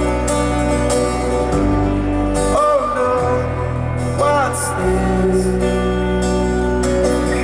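Live rock band playing an instrumental intro, with held bass notes that change every second or two. A voice sings two short wordless gliding phrases, about two and a half and four seconds in.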